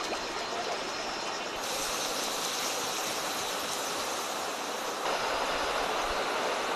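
Steady rush of river water. From about one and a half seconds in to about five seconds in, a bright hiss of steam from water-doused charcoal embers takes over, before the river rush returns.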